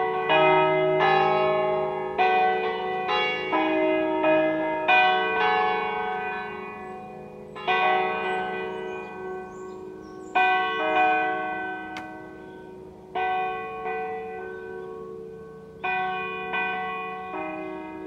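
Church tower bells ringing: several bells of different pitches struck in an irregular peal, each stroke ringing on and overlapping the next. The strokes come about two a second at first, thin out to one every few seconds in the middle, then pick up again near the end.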